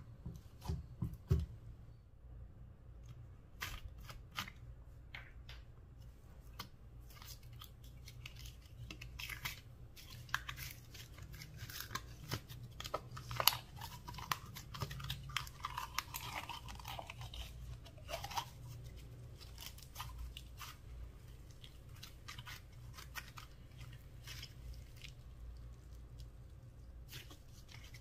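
Slime being handled: grey slime is squeezed out of a plastic jar and kneaded, making sticky clicks, crackles and squishes at irregular intervals. The crackling is densest about halfway through.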